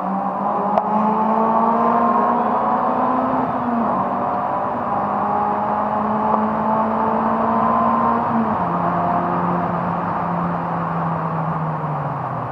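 Four-cylinder car engine heard from inside the cabin, pulling hard through the gears. The revs climb, then drop sharply at an upshift about 4 seconds in, and again at another upshift a little past halfway. After that the engine speed slowly sinks.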